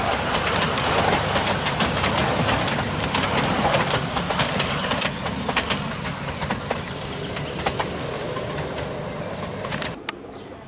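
A 7¼-inch gauge miniature diesel locomotive running past with its passenger cars, its engine humming under a stream of sharp clicks and clatter from the wheels on the track. It grows fainter as the train draws away, then drops off suddenly near the end.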